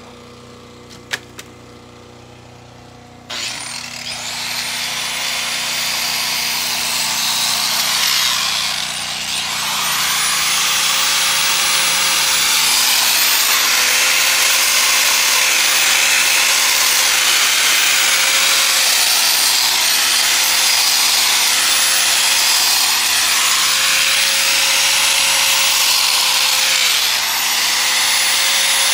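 Angle grinder with a masonry blade starting up about three seconds in and cutting a slot into hard stabilized compressed earth block. It runs loud and steady, and its pitch sags briefly several times as the blade is pressed into the block under load.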